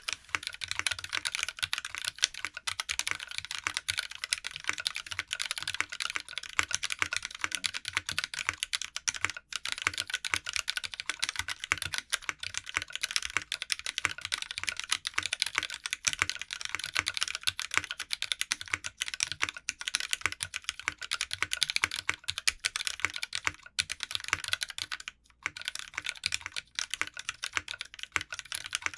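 Continuous fast typing on a mechanical keyboard with lubed Vintage Black linear switches, a brass plate and GMK keycaps: a dense stream of key clacks, with a brief pause near the end.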